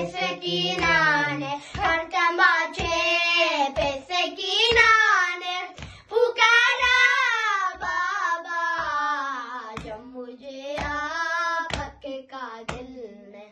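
Two boys chanting an Urdu noha lament in unison, unaccompanied, with sharp chest-beating (matam) slaps keeping time, about three every two seconds.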